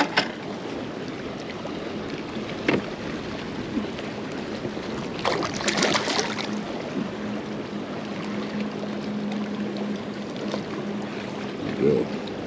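Wind buffeting the microphone and choppy lake water lapping against a fishing kayak, with a few single knocks, a short burst of knocking and rattling about five to six seconds in, and a faint steady hum through the middle.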